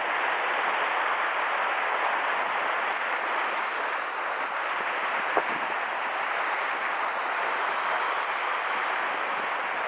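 Steady hiss of sea surf washing against a rocky shore, mixed with wind on the microphone, with a single short click about halfway through.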